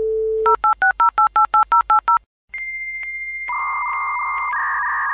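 Dial-up modem connecting over a phone line: a dial tone, about ten quick touch-tone digits dialled, then after a short pause the answering modem's high steady tone followed by the hissing handshake noise.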